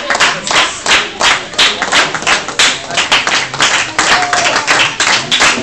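Audience clapping in unison, a steady beat of about three claps a second.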